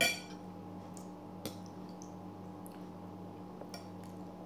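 Metal cutlery clinking against a ceramic plate while eating: a sharp clink right at the start, another about a second and a half in, then a few faint taps near the end, over a steady low hum.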